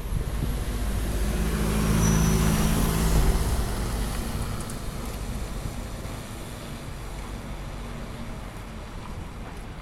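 A road vehicle passing close by in street traffic. Its engine grows louder over the first couple of seconds and fades away after about three and a half seconds, leaving a steady traffic hum.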